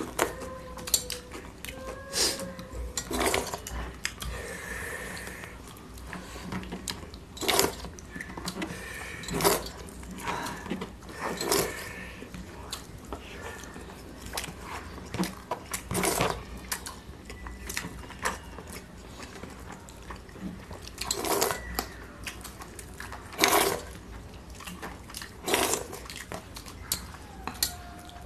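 Hand-eating from metal platters: fingers scraping and tapping the metal plates while mixing rice and chicken curry, with chewing and mouth sounds. Irregular sharp clicks and clatters, several of them louder knocks on the plates.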